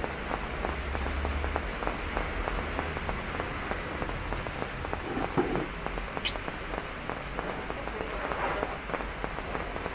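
Clothes being hand-washed: wet cloth scrubbed on a plastic washboard and sloshed and wrung in basins of water, with steady rain falling and pattering throughout.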